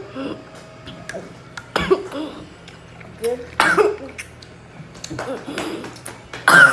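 A girl coughing several times in short, sudden fits, choking on sour hard candy that went down the wrong way, with some muffled words between the coughs.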